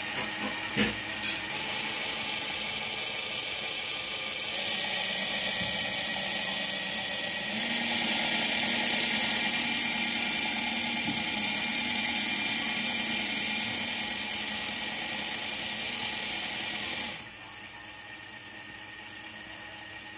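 Lego Technic W12 engine model driven by an electric motor, its motor and plastic mechanism running with a steady high whine. A couple of short clicks come in the first second. The sound steps up in level about four and a half and seven and a half seconds in, then drops suddenly a few seconds before the end and runs on quieter.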